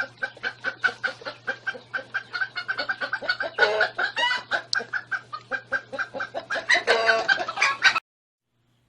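Chickens clucking in a rapid run of short clucks, with a few louder squawking calls, over a steady low hum; the sound cuts off abruptly near the end.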